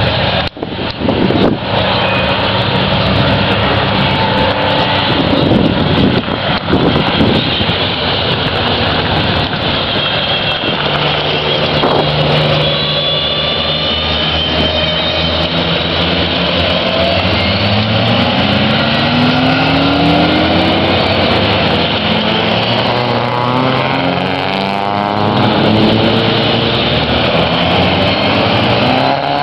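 Engines of several classic racing cars running hard as the cars pass one after another, their notes rising again and again as they accelerate through the gears.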